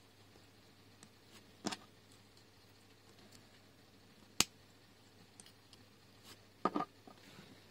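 Small LEGO plastic pieces clicking as they are pressed and snapped together by hand: a few sharp separate clicks, the loudest a little past halfway, and a quick cluster of clicks near the end.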